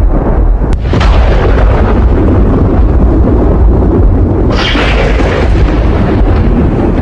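Thunder rumbling loudly and continuously, with a sharper crack about four and a half seconds in.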